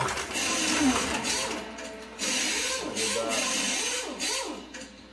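1:32-scale slot cars' small electric motors whining as they run on the plastic track, the pitch rising and falling again and again as the throttle is worked.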